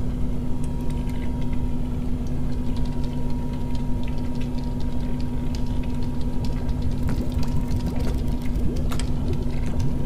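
Designed sci-fi machine sound effect: a steady low mechanical hum with a thin high tone above it and scattered crackling clicks.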